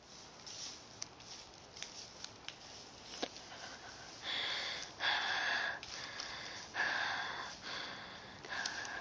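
A person breathing heavily close to the microphone, in repeated puffs that start about four seconds in, after a few faint clicks.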